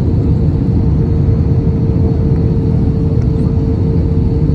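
Cabin noise inside an Airbus A320-family airliner on final approach: the steady, loud rumble of engines and airflow, with a constant hum running under it.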